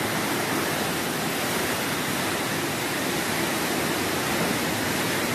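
Heavy rain and wind of a tropical cyclone, a steady, even hiss.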